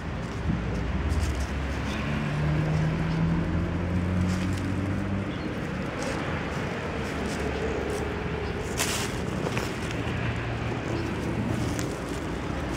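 Low steady hum of a vehicle engine, with a couple of sharp crackles of dry leaves about nine seconds in.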